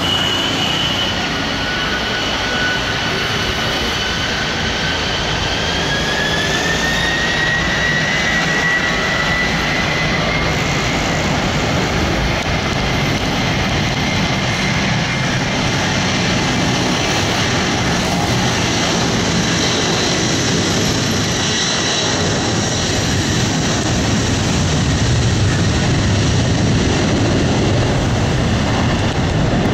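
Boeing 747-200 freighter's four Rolls-Royce turbofans at takeoff power during the takeoff roll: a loud, steady jet roar. About five seconds in, a high whine rises in pitch and then holds.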